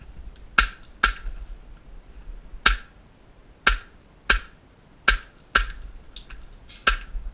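Airsoft guns firing single shots: about nine sharp cracks, spaced irregularly.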